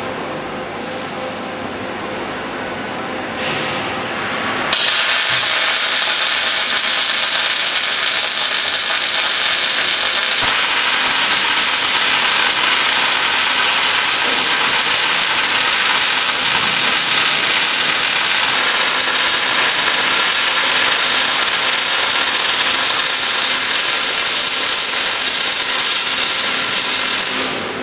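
Robotic arc welding: the arc strikes about five seconds in and runs as a steady, loud hiss, then cuts off suddenly just before the end. Before the strike there is only a quieter machine hum.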